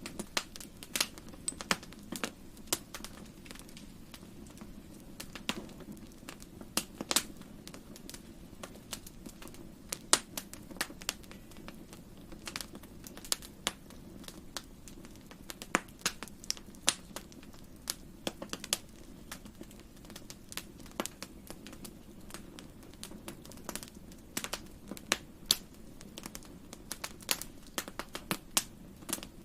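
Fireplace fire crackling: irregular sharp pops and snaps, a few each second, over a steady low rumble of the flames.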